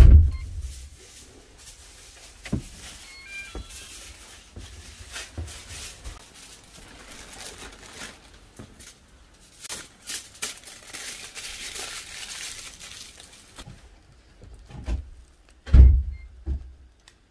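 Plastic bag and aluminium foil crinkling and rustling while sweet potatoes are wrapped, with scattered clicks and a few low thumps of handling.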